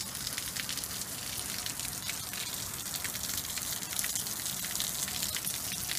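Steady rain falling: an even hiss with many fine drop ticks.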